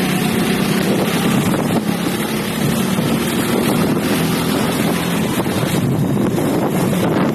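Motorcycle engine running steadily under way, with wind buffeting the microphone.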